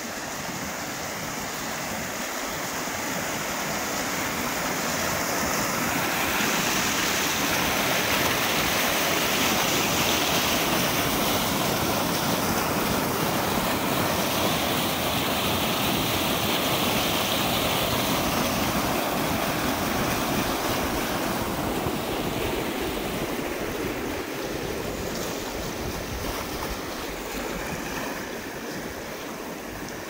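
Small stream in flood, swollen and brown, rushing over stones and rapids in a steady wash of water noise. It swells louder through the first several seconds, holds loudest in the middle and eases off in the last third.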